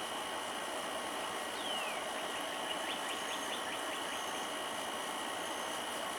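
A bird gives a short downward-sliding call about a second and a half in, then a quick run of faint clicking notes, over a steady background hum.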